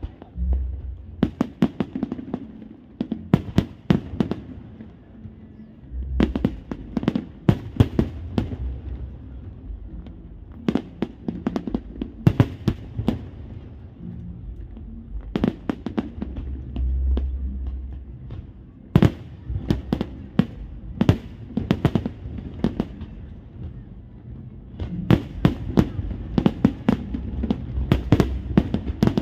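Aerial fireworks bursting in repeated volleys: many sharp bangs in quick succession over deep booms, the volleys coming every few seconds.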